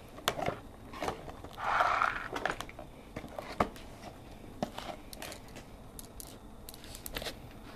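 Scattered small clicks and scrapes of prying at a Samsung Galaxy S II's cracked glass screen to separate it from the phone, with a longer, louder rasp about two seconds in.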